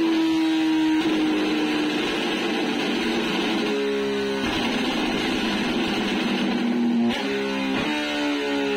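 Background rock music led by distorted electric guitar, held chords changing every second or few.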